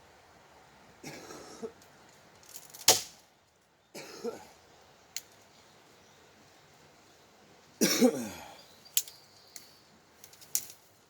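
A person coughing and clearing the throat several times, the loudest cough near the end, with sharp clicks and knocks in between.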